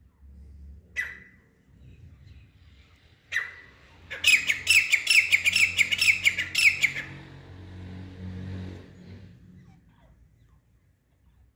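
Caged teetar (francolin) partridge calling: a single sharp note about a second in, another at about three seconds, then a loud rapid run of a dozen or so ringing notes lasting nearly three seconds. A low rumble sits underneath.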